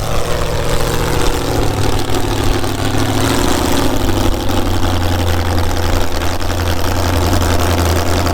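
Demolition derby car engine running loud and steady: a deep low drone with rough noise over it.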